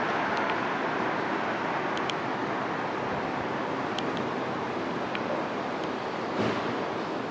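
Twin Garrett TFE731 turbofans of a Cessna Citation III on takeoff: a steady jet rush that eases off slightly, with a short thump about six and a half seconds in.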